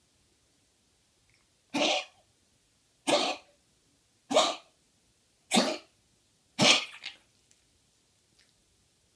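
West Highland white terrier coughing five times, about once every second and a bit, each a short, harsh, gruff hack. It is a chronic cough that has grown more intense and frequent, which the owner suspects may be a reaction to her bronchodilator and antibiotic tablets.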